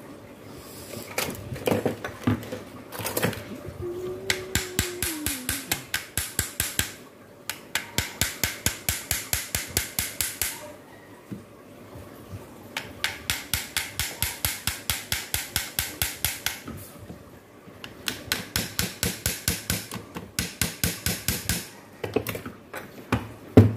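Cordless drill-driver's clutch slipping and clicking in rapid runs of about five clicks a second, in four bursts of a few seconds each, as it fails to turn a stuck screw in a fan motor.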